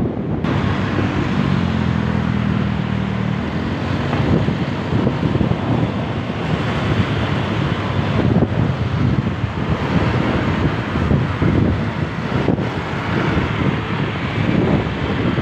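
Wind buffeting the microphone on a moving motorcycle, over engine and road-traffic sound. A steady engine hum stands out for a couple of seconds near the start.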